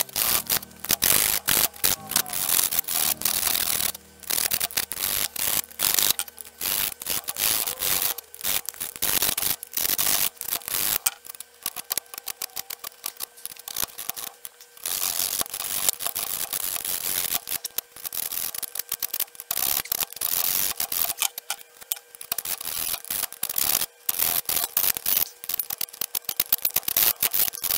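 Hand file rasping on steel in quick back-and-forth strokes, filing out a hole in a steel plate clamped in a vise, with a couple of short pauses.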